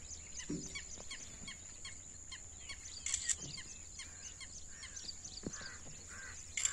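Wild birds chirping, many quick short calls over a steady high-pitched tone. The calls grow louder about three seconds in and again near the end.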